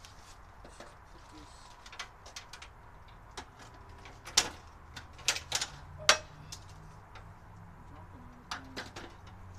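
Scattered sharp clicks and knocks, about eight in all, the loudest a little past the middle, from something being handled, over a faint steady hum.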